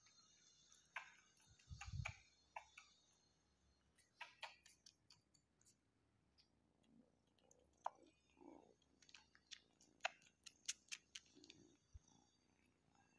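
Faint, irregular wet clicks and smacks of kittens suckling and nuzzling at a cat's belly, coming in small clusters, with a soft thump about two seconds in.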